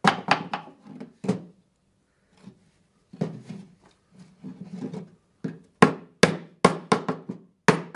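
Small hammer tapping on a wooden picture frame to seat its 45-degree mitred corner joints: a few quick taps at the start, soft cloth rubbing in the middle, then a run of about seven sharp taps near the end.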